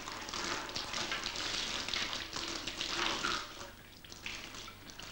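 Molten wax poured from a cup running and spattering down the side of a tall hand-built candle, a fluctuating pouring hiss that fades near the end. Each pour adds another layer to the candle.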